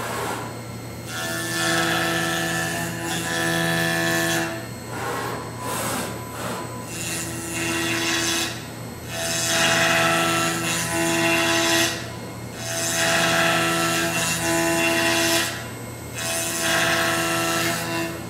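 Five-axis CNC machining center's spindle driving an end mill through a laminated katsura wood block, cutting in passes of a few seconds each with brief lulls between. A steady hum rises with the chip noise during each pass.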